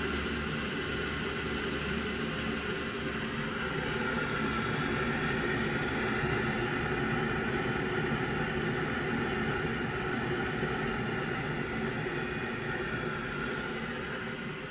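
Navien 240 gas tankless water heater running just after firing up: the steady hum of its combustion blower and burner, swelling slightly about four seconds in and easing off near the end.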